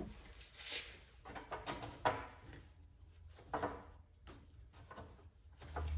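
Rag wiping the fender of a John Deere LA165 lawn tractor around the fuel cap: several soft swishes of cloth rubbing on the painted surface. A low steady hum comes in near the end.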